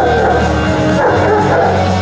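Rock-style band music playing loudly, with held bass notes under it.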